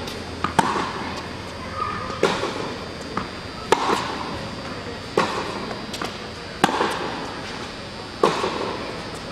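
Tennis balls struck back and forth in a rally, a sharp pop off the racket strings about every one and a half seconds, with lighter ball bounces between hits. Each hit rings on in the echo of a large indoor tennis hall.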